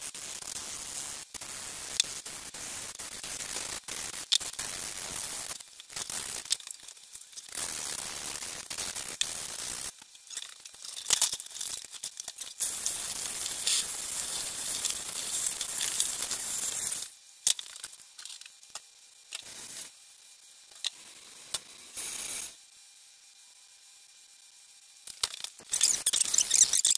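Sandpaper rubbed by hand over a fibreglass duct: long stretches of scraping, with quieter gaps and a few light knocks in the second half.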